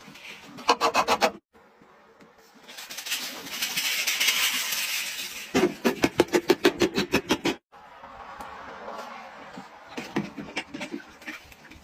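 Laundry products poured into a top-loading washer's steel drum, in short cut-together clips. A steady hiss of powder and scent crystals pouring alternates with quick rhythmic runs of glugs as liquid detergent pours from a bottle.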